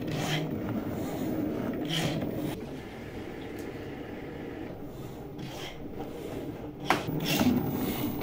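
Cricut Maker 3 cutting machine running as its rotary blade cuts fabric: a steady motor whir with rubbing and scraping as the carriage and mat move, and a sharper knock about seven seconds in.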